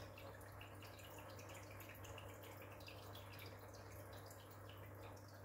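Faint trickling and dripping water from an aquarium's internal filter, over a steady low hum.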